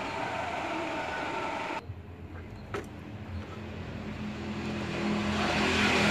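Motor vehicle engine running, growing louder through the second half, with a single sharp click near the middle.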